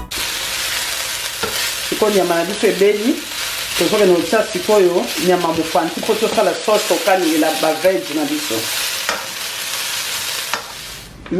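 Beef strips sizzling in a hot wok as a spatula stirs and scrapes them around the pan. The sizzle dies away just before the end.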